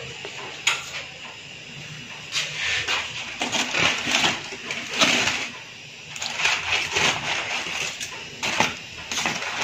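Aluminium foil crinkling and rustling in irregular bursts as the wrapping is pulled open.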